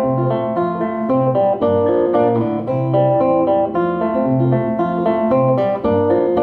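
Solo acoustic guitar playing an instrumental passage between sung lines: steady picked chords over repeating bass notes, with no voice.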